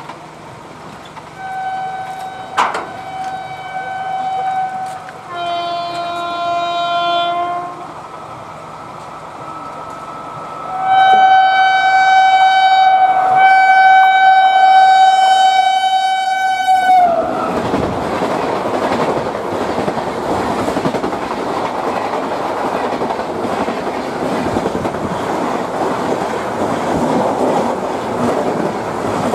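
Electric locomotive's air horn sounding short blasts on a higher and a lower tone, then a long loud blast that drops in pitch as a WAP-5 locomotive passes at speed. The horn gives way to the steady rush and clatter of the express's coaches and wheels running past.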